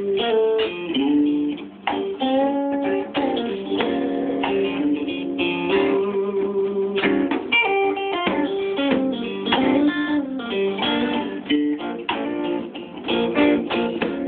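Instrumental guitar break: a guitar playing strummed chords and quick picked single-note runs, with no singing.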